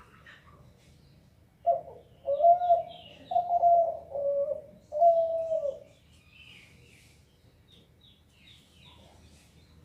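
Spotted dove (derkuku) cooing one phrase of about five low notes, starting about two seconds in and ending about six seconds in. Small birds chirp faintly in the background.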